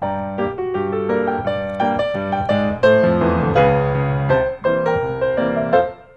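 Background piano music, a melody of quick successive notes that drops away briefly near the end.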